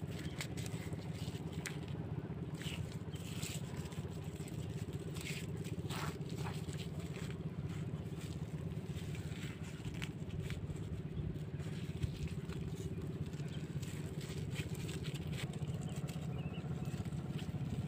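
Hands digging a mud crab out of wet pond mud: scattered short squelches and scrapes over a steady low rumble.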